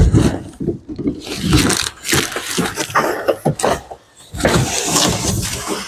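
A large cardboard box being dragged up and off a metal shipping crate: loud, irregular cardboard scraping and rubbing with scattered knocks, easing briefly about four seconds in.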